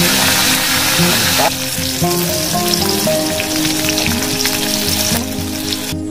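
Hot oil sizzling loudly in a wok over a wood fire, fish frying and then chilies, tomato and shallots being stir-fried; the sizzle cuts off suddenly near the end. Background music plays under it.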